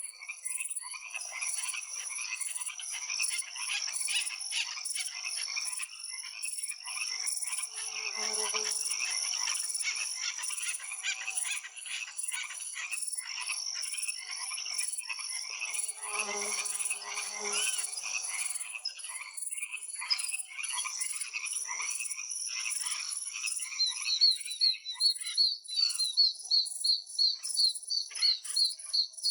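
A dense chorus of wild animal calls: many overlapping short chirping calls over a steady high-pitched trill. About five seconds before the end, one caller starts repeating a high note about four times a second, louder than the rest.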